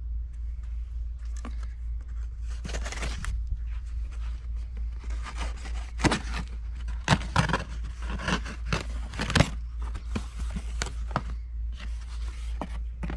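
Tape on a cardboard shipping box being slit and torn open, then the cardboard flaps scraping and rustling as they are pulled apart. Irregular scrapes and tearing, with several sharp clicks and knocks, the loudest about six, seven and nine seconds in.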